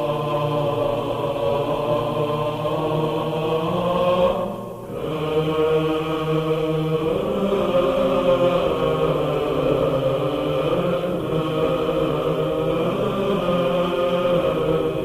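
Background music of chanting voices holding long, sustained notes, with a brief drop about four and a half seconds in.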